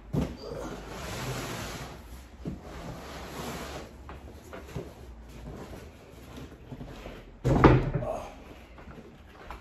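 A knock just after the start, a few seconds of rustling noise, then a heavy thump with a short tail about seven and a half seconds in.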